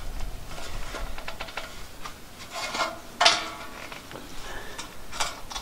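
Thin steel trim being bent and folded over by gloved hands: light crinkling and clicking of the sheet metal, with one sharper snap about three seconds in.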